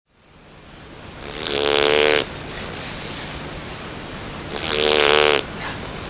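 A nine-week-old Bernese Mountain Dog puppy snoring in its sleep: two snores about three seconds apart, each lasting about a second.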